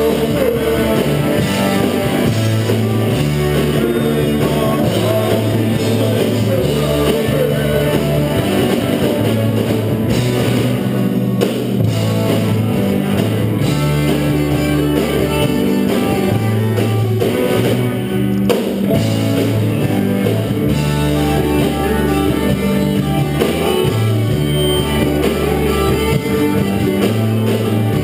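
Rock band playing live: electric guitars and a drum kit over a bass line stepping through low notes.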